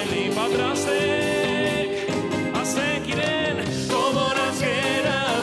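Live worship music: women's voices singing a melody together, with vibrato, over acoustic guitar and band accompaniment.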